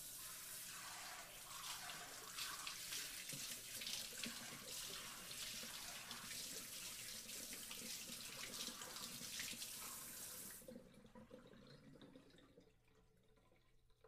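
Water sprayer jetting a continuous spray of water that starts suddenly and cuts off about three-quarters of the way through, followed by softer splashing that dies away.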